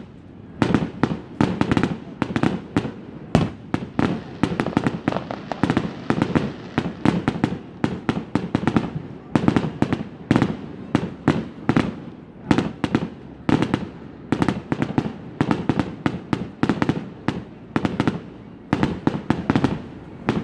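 Fireworks show: aerial shells bursting in a rapid, dense run, several bangs a second, with no let-up.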